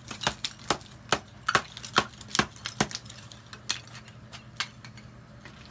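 Hammer and chisel blows cracking a ceramic investment shell mold off a bronze casting: sharp, irregular strikes about two or three a second, thinning out after about four seconds.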